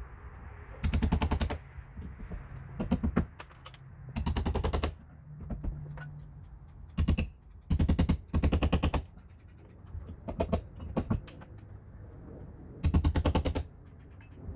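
A power tool hammering rapidly in short bursts of under a second, about six times, with quieter pauses and a few single knocks between.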